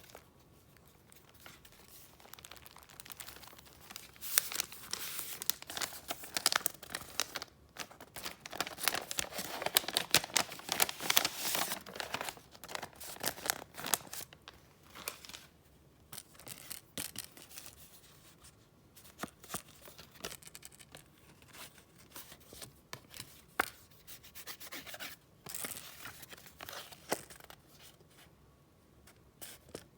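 Paper and gift wrapping handled close up: rustling and crinkling, busiest and loudest through the first half, then softer, scattered rustles and crackles.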